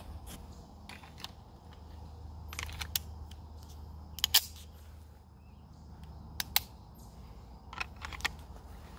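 A series of short, sharp metallic clicks from handling a CZ 75 P-01 pistol whose slide is locked back on an empty magazine: reloading and holstering, with the loudest pair of clicks about four seconds in.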